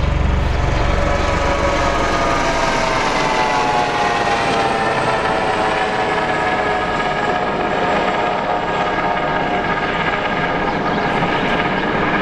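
Boeing 747 freighter's four turbofan engines whining at taxi thrust as the jet turns, a cluster of high tones that slowly bend in pitch over a steady rush. A low rumble dies away about two seconds in.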